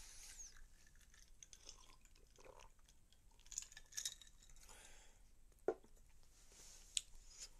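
Faint, close-up eating sounds: chewing, a sip from a glass about four seconds in, and two sharp clicks near the end.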